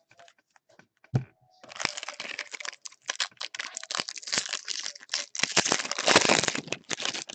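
Plastic wrapper of a baseball card jumbo pack being crinkled and torn open. A single knock about a second in, then a long run of dense crackling crinkles.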